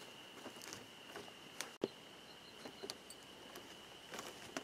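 Faint, steady, high-pitched trill of night insects, with a few soft scattered taps and rustles.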